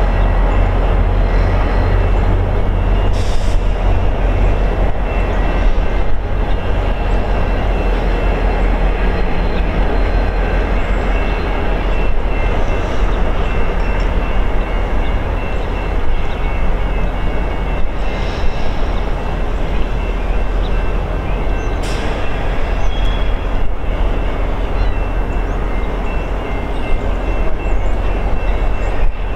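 VIA Rail F40PH-2 diesel locomotive, with its EMD 645 two-stroke V16 engine, working under power as the passenger train pulls away. It makes a steady low drone with the rumble of the train rolling over it, and a few faint high tones above.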